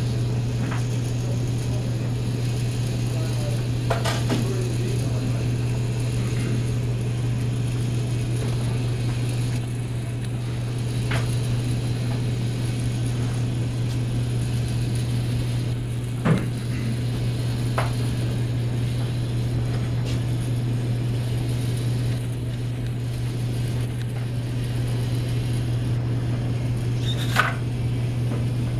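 Small tank-tread robot driven by servo motors, running steadily with an even mechanical hum and a few sharp clicks, the loudest about sixteen seconds in.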